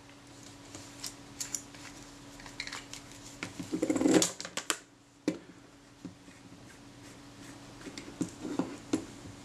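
Small clicks and light scrapes of metal camera parts from a Retina IIa shutter and lens assembly being handled and set down on a rubber bench mat, with a louder burst of handling noise about four seconds in.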